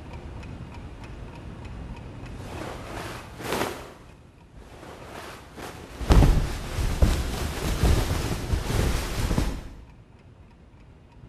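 Bedclothes rustling as a restless sleeper tosses in bed: a brief swell of rustling about three seconds in, then a louder, heavier stretch of thrashing and rustling under the covers from about six seconds in that stops abruptly near the end.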